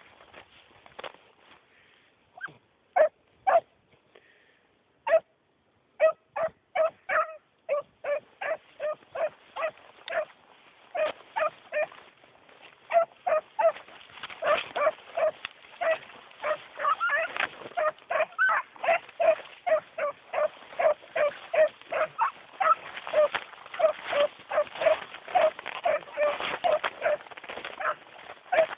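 Beagles baying on a rabbit's trail: short, sharp chop-mouth barks, at first a few near the start, then about two a second, growing denser and overlapping about halfway through.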